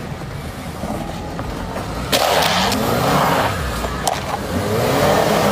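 Land Rover Discovery Sport's engine rising and falling in revs as it crawls over rock and dirt. About two seconds in, a loud rough scraping rush of the tyres and body on the rock starts, with a sharp knock about four seconds in and more scraping near the end.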